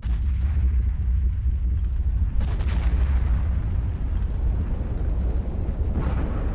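Volcanic eruption at sea: a steady deep rumble, with two explosive blasts about two and a half seconds and six seconds in.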